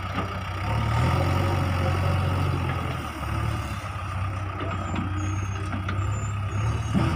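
Diesel engines of a Swaraj 744 tractor and a JCB 3DX backhoe loader running together. The engine note rises and grows louder about a second in as one is throttled up, then settles to a steady drone.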